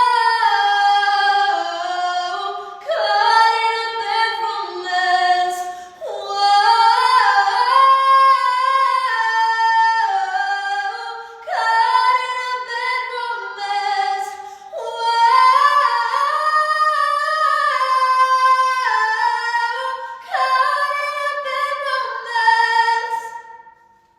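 A high female voice singing alone, with no instruments heard, in phrases of a few seconds each with short breaks between them; it fades out near the end.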